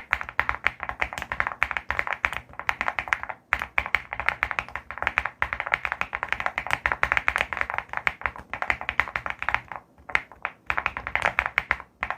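Mechanical keyboard being typed on fast and continuously, a rapid stream of key clacks with brief pauses about three and a half seconds in and again about ten seconds in.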